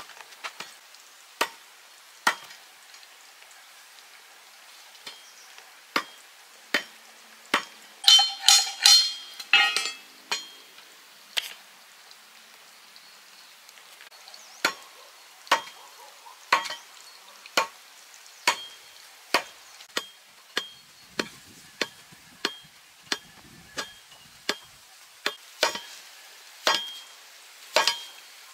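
Repeated sharp knocks, scattered at first, then settling into a steady beat of about one a second. A short burst of ringing, metallic clinking comes about eight seconds in. A faint steady hiss lies underneath.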